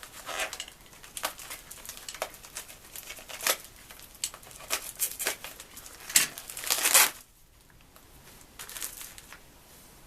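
Parcel wrapping being handled and pulled off by hand: irregular crinkling and rustling, with a loud burst of crinkling shortly before seven seconds, then only a few faint rustles.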